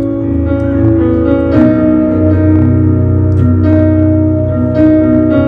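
Church worship band music with keyboard holding sustained chords over a bass line, changing chord a few times, as the band plays between sung lines of the worship song.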